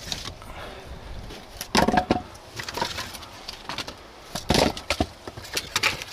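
Split birch and aspen firewood clattering and knocking together as pieces are pulled from a stacked woodpile. There are several sharp wooden knocks, the loudest about two seconds in and again past the middle.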